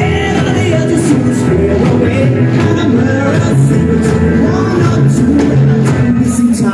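Live rock and roll band playing a song loud and steady, with upright bass, drums, electric guitars and keyboard.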